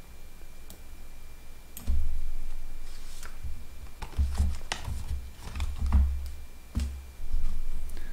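Irregular clicks and dull low thumps of a computer mouse and keyboard being handled at a desk, with a faint steady high tone underneath.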